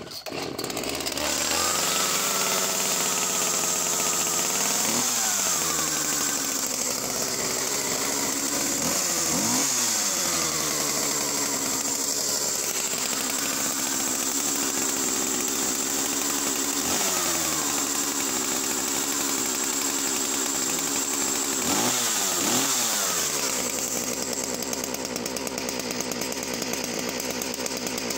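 Husqvarna 41 two-stroke chainsaw running from a stone-cold start, revved up and back down briefly four times, then settling to a steady idle near the end.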